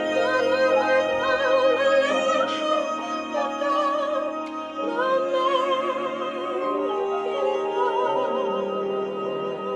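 Recorded music played back over hi-fi loudspeakers: a singer holding long notes with wide vibrato over a sustained accompaniment.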